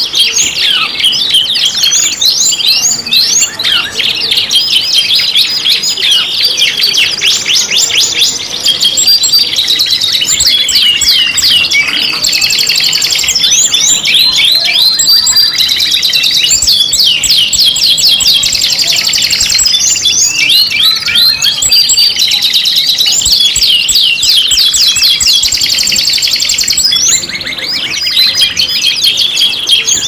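Several canaries singing at once in a layered five-bird song mix, used to set other canaries singing: dense, continuous rapid trills, rolls and chirps overlapping with no pause.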